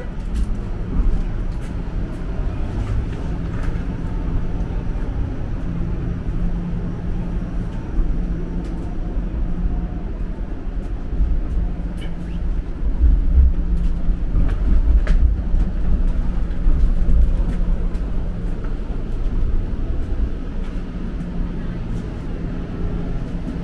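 Cabin noise inside a moving Bombardier Flexity Outlook low-floor streetcar: a steady low rumble of wheels on rails under a constant hum. The rumble grows louder for a few seconds past the middle, then settles back.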